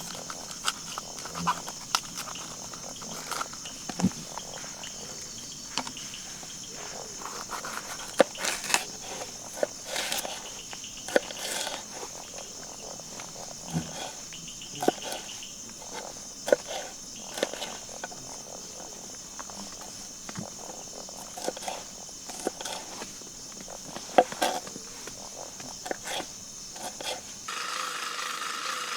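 Forest insects droning steadily at a high pitch, with scattered clicks and crackles over it. Near the end a lower, steady buzzing tone comes in.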